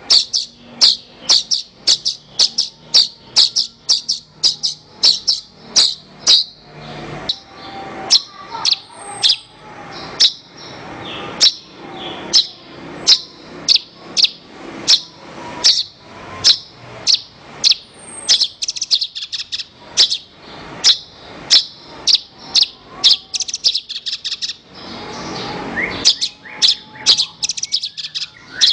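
Javan bush lark (branjangan) singing: a steady run of sharp, high chirps, about two to three a second, with fainter lower warbling notes in between.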